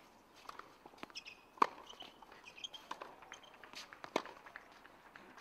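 Scattered sharp knocks from tennis play on a hard court: racket strikes, ball bounces and footsteps. The loudest knock comes about a second and a half in.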